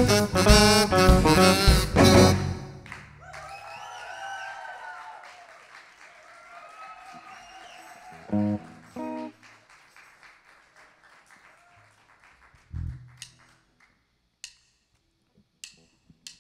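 A live funk-rock band with drums, bass, guitars and keyboard hits the final chords of a song, stopping sharply about two seconds in. Scattered whoops and whistles from the audience follow, then a few single bass and guitar notes and light clicks as the band readies the next song.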